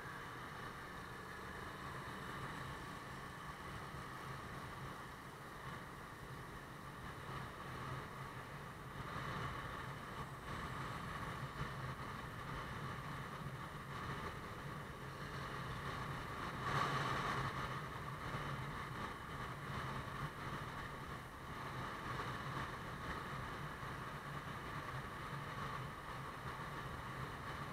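Motorbike riding at a steady cruise: a low, even engine hum under wind and road noise, with a brief louder swell about seventeen seconds in.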